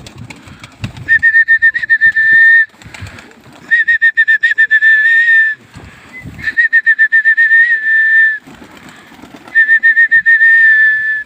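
Four long, loud trilling whistle blasts, each a steady high note with a fast warble, blown to drive a flock of pigeons up and keep them flying.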